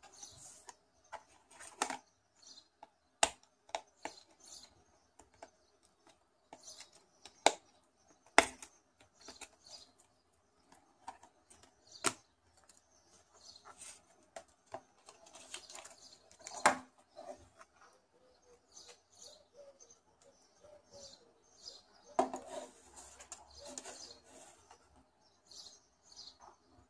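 Clear plastic filter case being handled and opened: irregular sharp clicks and taps of hard plastic, with soft rustling and scraping between them. There is a brief faint squeak of plastic rubbing partway through.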